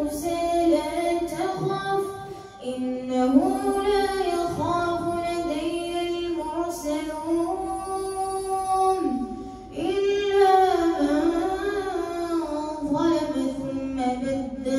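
A boy's voice chanting Quranic recitation in the melodic tajweed style as imam of Tarawih prayer, amplified through a microphone and loudspeaker. It holds long notes that bend and turn in pitch, in phrases with short breaks for breath about two and a half, nine and a half and thirteen seconds in.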